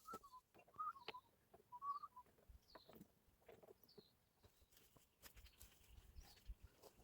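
Faint bird chirping, a few short wavering calls in the first two seconds, among scattered light clicks and taps.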